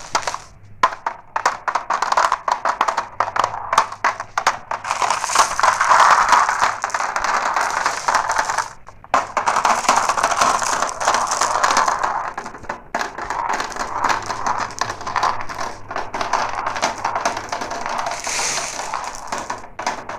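Glass marbles rolling and clattering down a marble run: a dense, continuous rattle of many small clicks, with a brief lull about nine seconds in.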